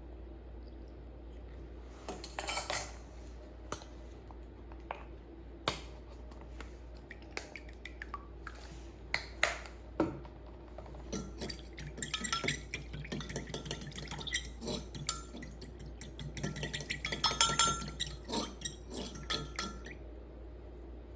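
Metal utensils and cookware clinking and knocking in kitchen prep: scattered single clinks at first, then a quick, dense run of ringing clinks through the second half.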